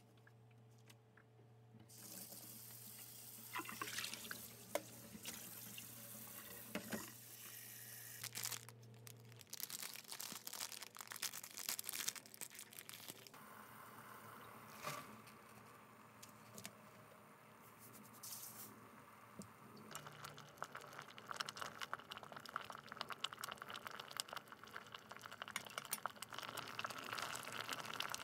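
Tap water running into a stainless steel kitchen sink while leafy greens are rinsed, with scattered clicks and splashes. Later, water heating in a pot, with a dense crackle of small bubbles building from about twenty seconds in as it nears the boil.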